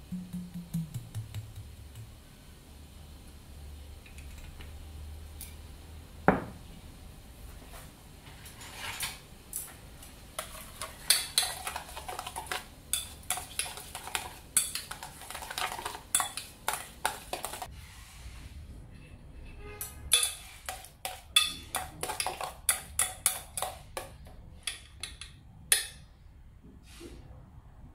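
A metal spoon clinking and scraping against a stainless-steel mixing bowl, in quick irregular strokes, as chopped garlic and chili are stirred together with sauce. It opens with sauce poured in from a bottle, a short glug falling in pitch.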